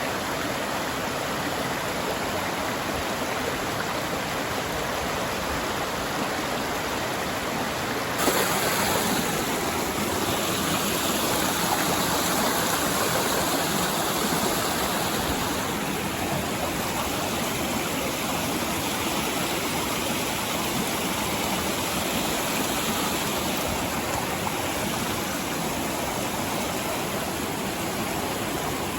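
Mountain stream running as a steady wash of water noise. It suddenly grows louder and brighter about eight seconds in, then eases back a little about halfway through.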